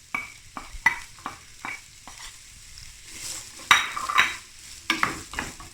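Chopped onion frying in hot oil in a pan, sizzling, while a utensil stirs it with repeated clicks and scrapes against the pan.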